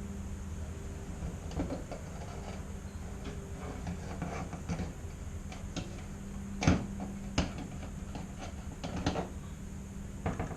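Irregular clicks and knocks of a replacement fuel pump being squeezed and pushed into its bracket by hand, with two sharper knocks about two-thirds of the way through, over a steady low hum.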